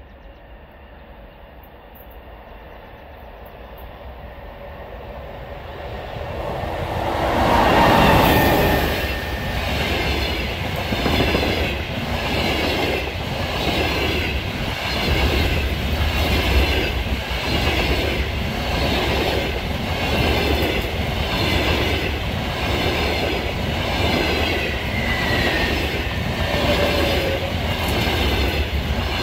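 Double-deck passenger train hauled by an EP20 electric locomotive passing close by. The sound builds as it approaches and is loudest about eight seconds in. The coaches then roll past with a regular wheel clatter about once every second and a bit, and there are brief wheel squeals near the end.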